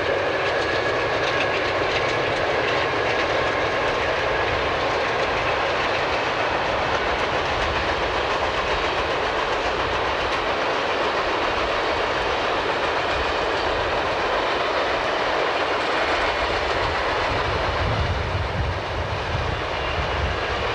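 Conrail freight train passing: several diesel locomotives working under power, then hopper cars rolling by with wheels clacking over the rail joints. Steady and loud throughout.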